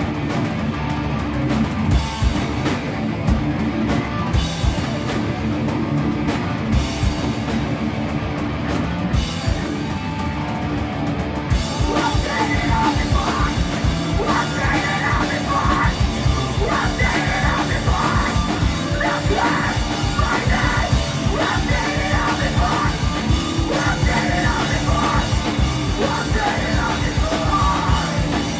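Metalcore band playing live: distorted guitar, bass and drums. About twelve seconds in the whole band comes in louder and fuller, with screamed vocals over it.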